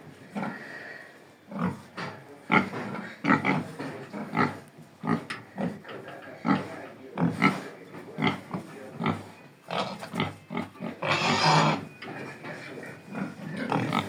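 Pietrain gilts grunting in a run of short grunts, with one longer, louder squeal about eleven seconds in.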